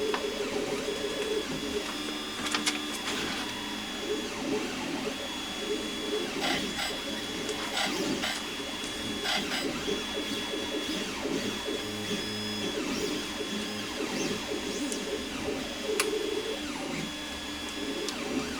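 Clicks and light knocks of paint-booth parts and hose fittings being handled and tried in place, over a continuous busy mechanical-sounding background.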